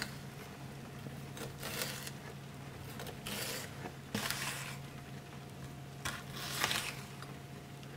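Knife cutting a red bell pepper on a plastic cutting board: about five separate short cutting strokes, spaced irregularly, over a steady low hum.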